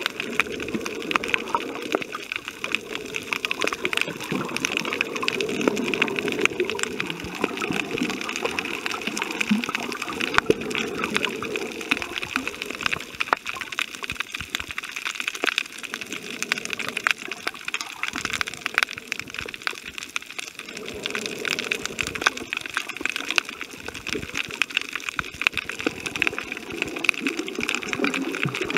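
Underwater sound picked up by a submerged camera: a steady rushing wash of water, dotted throughout with many sharp little clicks and crackles.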